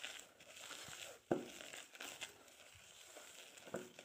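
A utensil stirring and folding sponge-cake batter of beaten egg whites and flour in a metal bowl: faint scraping and squelching, with a sharp knock against the bowl just over a second in and a couple of lighter taps later.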